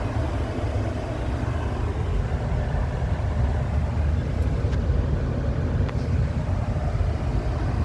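Mahindra Thar's engine idling: a steady low rumble, with two faint clicks about five and six seconds in.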